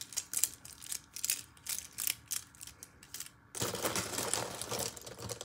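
Desk handling noise from pens and paper: light irregular clicks and taps, then about two seconds of continuous scratchy rustling.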